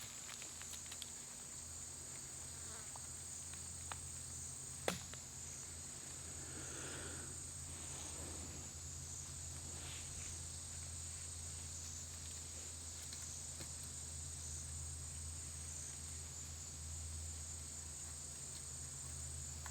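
Steady high-pitched chirring of an insect chorus, such as crickets, with one sharp knock about five seconds in.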